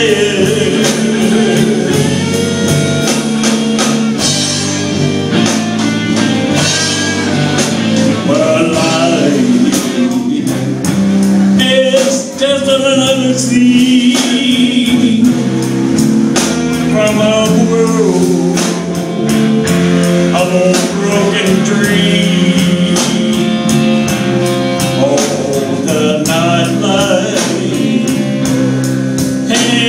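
A live rock band with a man singing lead over guitars and drums keeping a steady beat.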